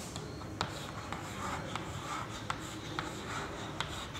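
Chalk writing on a blackboard: short scratchy strokes with sharp taps as each digit is put down, about two taps a second.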